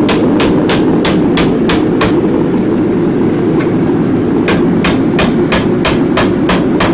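Hand hammer striking a red-hot bar clamped in a vise, scrolling its end: quick blows about four a second, a pause of about two seconds with a single blow partway through, then the hammering resumes. A steady low whir runs underneath.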